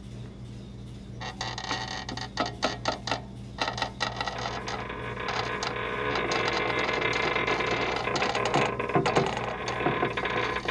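Irregular clicks and creaks of a metal folding chair taking a man's weight as he climbs onto it and reaches up to a ceiling light. They start about a second in and grow denser and louder in the second half, over a steady low machinery hum.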